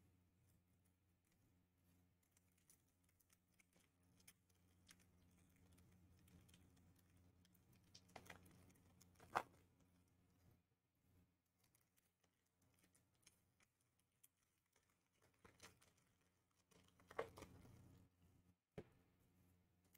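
Faint handling of trading cards and their foil pack wrappers: scattered light clicks and rustles, with a few sharper snaps about 8 and 9 seconds in and again near 17 seconds.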